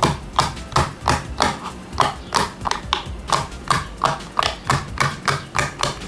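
Fingers pressing the rubber bubbles of a square pop-it fidget toy one after another, a steady run of sharp pops about three a second.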